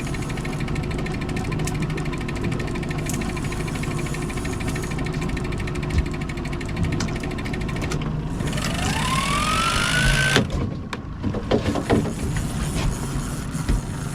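Boat engine running steadily at trolling speed. About eight seconds in, a rising whine climbs for a couple of seconds and stops suddenly, followed by a few scattered clicks and knocks.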